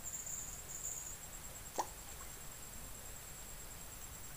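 A single short plop about two seconds in, over a steady high-pitched insect drone.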